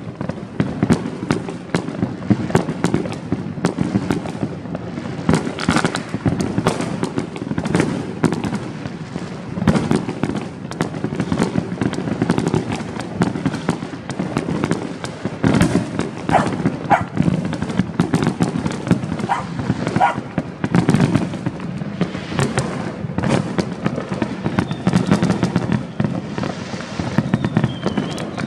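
New Year's fireworks and firecrackers going off without pause, a dense jumble of overlapping bangs and crackles. A dog barks several times in the middle.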